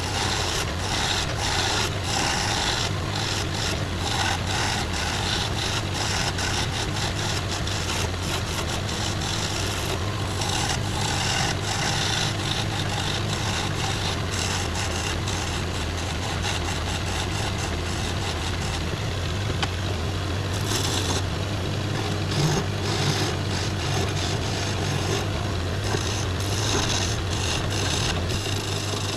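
Wood lathe motor running steadily with a low hum while a skew chisel cuts the spinning wooden spindle, giving a continuous rough scraping hiss of shavings that eases off briefly about two-thirds of the way through.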